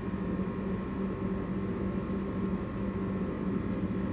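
Steady low hum with a hiss, unchanging throughout, from a running appliance or fan in the room.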